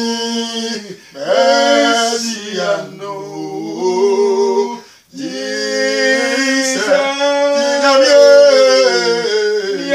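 Two men singing a worship song together without accompaniment, holding long notes that slide from pitch to pitch, with brief breaks about one second and five seconds in.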